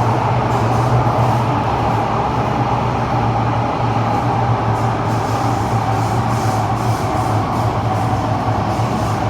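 Cabin of a KSF CT251 metro train running at speed between stations: a steady low rumble with a whine above it. The title says this set has flat wheels.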